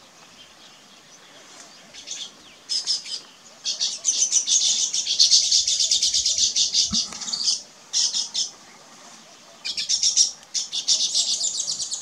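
Male baya weaver's chattering song: bursts of rapid, high-pitched chirps. The longest and loudest run lasts about four seconds in the middle, with shorter bursts before it and near the end.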